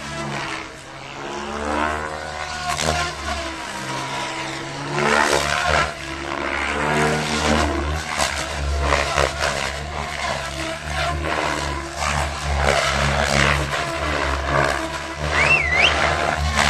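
Radio-controlled aerobatic helicopter flying a freestyle routine. The rotor chop and whoosh rise and fall in pitch and loudness as the model manoeuvres.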